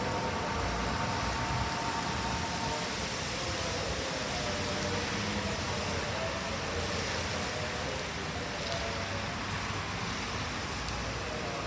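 Steady road traffic noise with faint tones from passing vehicles that come and go.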